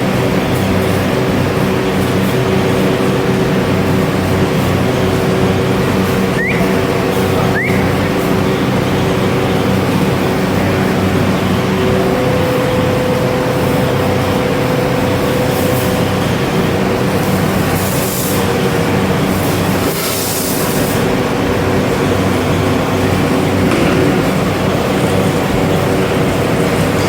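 Machinery running steadily, a loud hum with several steady tones. Two short rising chirps come about six and a half and seven and a half seconds in.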